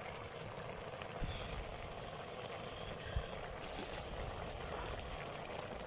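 Quiet outdoor background noise, with a low rumble of wind on the microphone through the middle.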